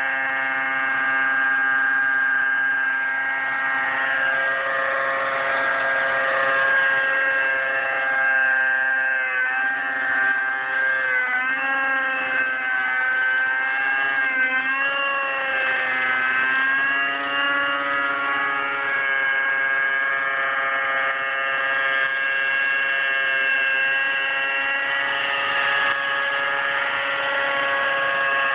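Align T-Rex 600 flybarless nitro RC helicopter in flight: its glow engine and spinning rotors make a steady high-pitched whine. The pitch wavers up and down for several seconds midway, then settles again.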